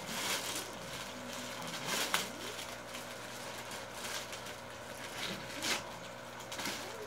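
Clear plastic bags of toy parts being handled and pulled open by hand, crinkling in short bursts every second or two.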